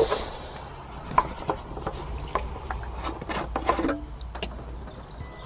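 Soldering iron tip rubbing and scraping over a plastic buoy, spreading melted zip-tie plastic, with irregular small ticks and clicks.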